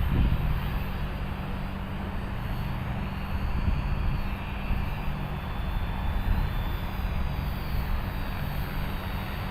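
Electric T-Rex 450-class RC helicopter hovering: a steady rotor hum with a high motor whine that wavers in pitch around the middle, under heavy wind rumble on the microphone.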